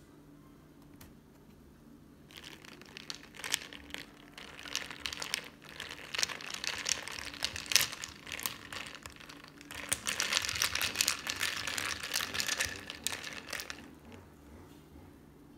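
Ice cubes rattling and clinking in a glass mason-jar mug as a strawberry drink is stirred with a straw: a dense crackling clatter that starts about two seconds in and dies away near the end.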